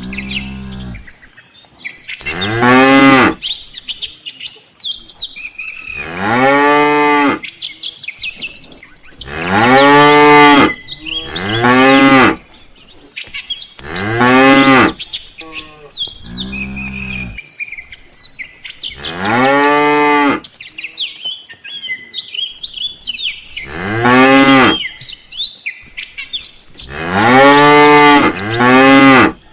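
Cattle mooing over and over, about ten long, loud moos a few seconds apart, each rising then falling in pitch. Birds chirp in the gaps between the moos.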